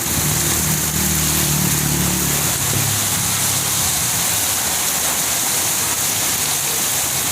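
Steady hiss of heavy rain. A car engine hums low under it and fades out about three seconds in.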